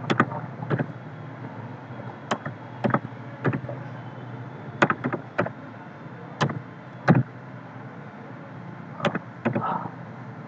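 Computer keyboard keys clicking as a short code is typed: about fifteen sharp clicks at irregular spacing, some single and some in quick pairs, with pauses between. A steady low hum runs underneath.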